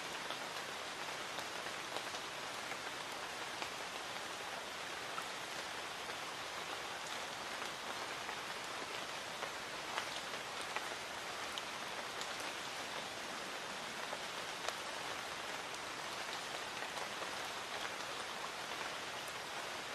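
Light rain falling steadily: an even soft hiss with many scattered, sharper ticks of individual drops.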